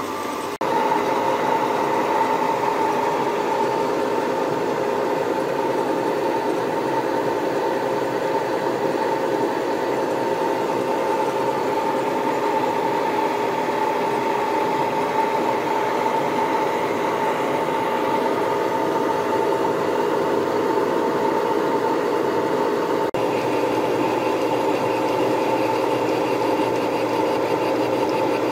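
Indexable face mill on a milling machine cutting a cast-iron Myford lathe saddle at a fast feed for a deliberately coarse surface: a steady rasping cut with a steady whine under it.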